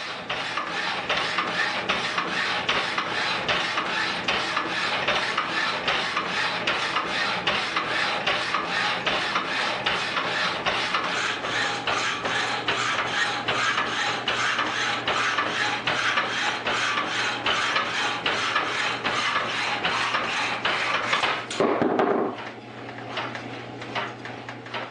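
Motor-driven power hacksaw cutting through a steel train knuckle pin: the blade rasps back and forth in a steady rhythm over the motor's low hum. Near the end the cutting stops and only the motor's hum is left.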